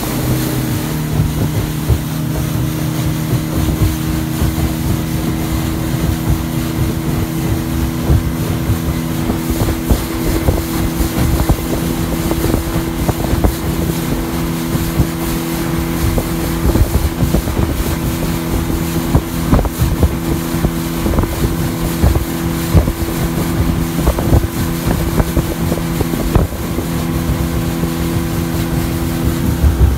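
Speedboat engine running steadily at speed, with irregular thumps from about ten seconds in.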